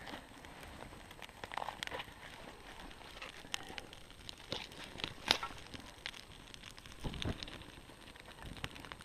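Scattered small snaps and rustles of dry twigs and wood chips being handled and stepped on, with one sharper snap about five seconds in and a dull thump a couple of seconds later.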